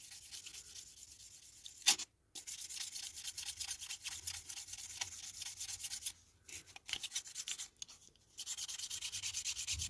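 A buffer block rubbed quickly back and forth over a clear plastic model-car window unit, making a fast, scratchy hiss that stops briefly a few times. This is the final buffing stage, taking the scuffs out of the plastic.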